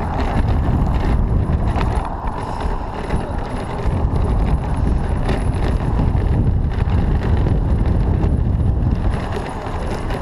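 Wind rumble on the microphone of a bicycle-mounted camera while riding, with occasional knocks from the bike.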